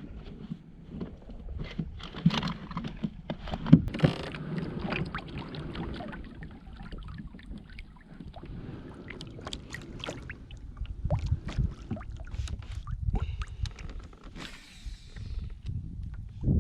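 Irregular knocks, clicks and rustling from someone moving about and handling gear in a fishing kayak. The loudest knock comes a little under 4 seconds in, and a short hiss follows near the end.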